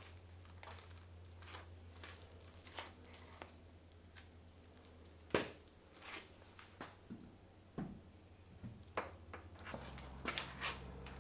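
Scattered light clicks and taps of hand work on metal car parts, with one sharper knock about five seconds in, over a steady low hum.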